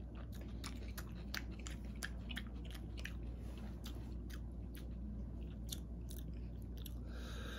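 A person chewing a mouthful of salad close to the microphone: scattered crisp crunching clicks, uneven in timing, over a steady low hum.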